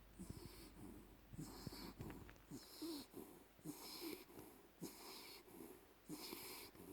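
A Jack Russell–Chihuahua mix dog snoring in its sleep: faint, wheezy breaths, about one a second.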